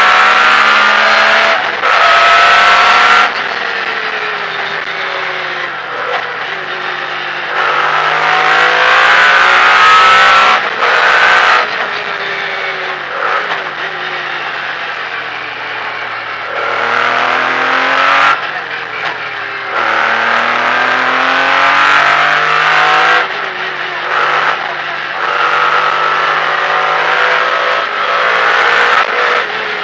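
Onboard sound of a Metro 6R4 rally car's V6 engine driven hard, revving up through the gears. The pitch climbs, then drops at each shift. Loud full-throttle bursts alternate with quieter stretches off the throttle.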